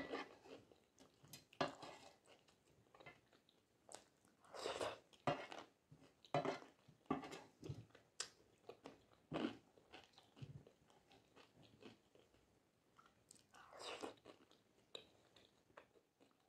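Close-miked chewing and mouth sounds of someone eating flat rice noodles (kwetiau), coming in irregular short bursts with a few sharp clicks among them.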